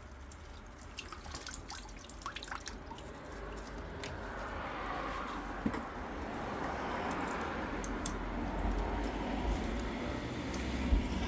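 Water from a drained-down Ferroli combi boiler's water side dripping at first, then trickling out steadily from about four seconds in.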